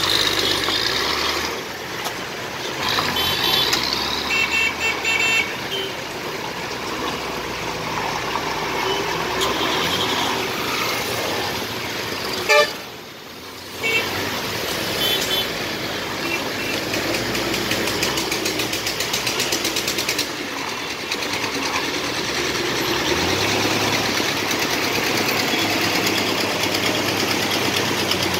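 Road traffic: heavy truck and motorcycle engines running as they pass, with vehicle horns honking several times, around four seconds in and again near fifteen seconds.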